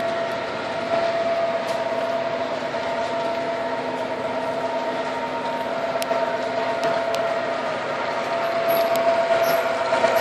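O gauge MTH Premier SD80MAC model locomotive running on the track: a steady motor whine over wheel rumble, with a few light clicks about six to seven seconds in.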